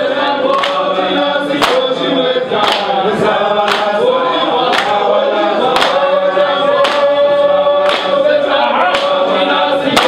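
A group of voices singing together in harmony, unaccompanied, with a sharp percussive beat about once a second keeping time.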